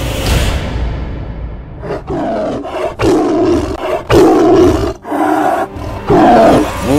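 Tiger roaring: a rush of noise swells up in the first second, then about five loud roars come one after another.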